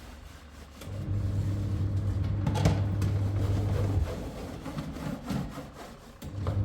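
A motor hums steadily in spells, starting about a second in, cutting out around four seconds in and starting again near the end, with some scraping and rubbing over it.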